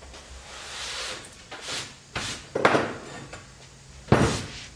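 Rubbing and scraping on a shop work table with a few knocks, the loudest a heavy clunk about four seconds in: workpieces and debris being handled and cleared off the table.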